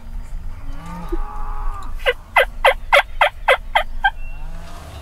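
Wild turkey yelping: a softer drawn-out note about a second in, then a loud run of about eight sharp yelps, each dropping in pitch, roughly three a second.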